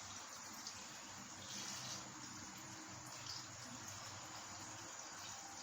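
Pot of chicken bone soup simmering on the stove: a faint steady hiss with a low hum underneath.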